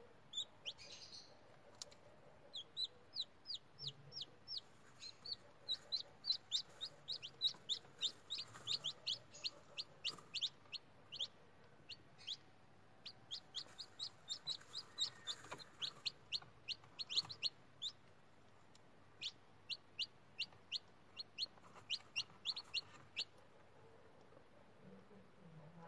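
Newly hatched chicken chicks peeping: rapid, high-pitched peeps in runs of several a second, with short pauses, falling quiet near the end.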